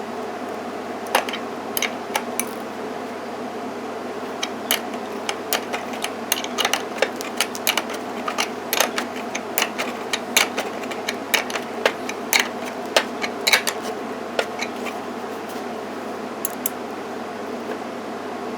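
A bolt being wound down in a homemade crimping tool to crush a battery cable connector onto its wire: scattered sharp metal clicks, irregular and a few per second, over a steady background hum.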